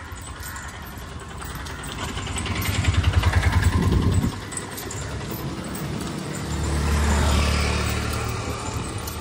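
Motor vehicles passing close on a road. An autorickshaw's engine draws near, throbbing, and drops away suddenly about four seconds in. A second engine hum swells and fades near the end.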